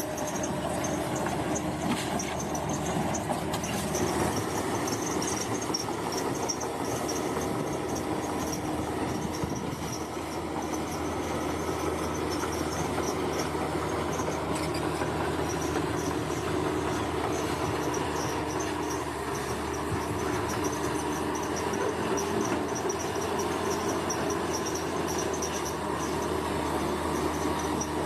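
Bulldozer working: a steady engine drone with the clatter of its tracks, and a high-pitched pulsing chirp above it.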